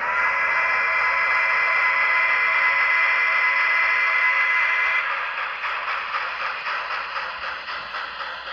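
Model steam locomotive's sound-decoder whistle (BLI Mikado) blowing one long chime blast of about five seconds, sliding up slightly as it starts and cutting off sharply. A fainter rhythmic sound follows and fades.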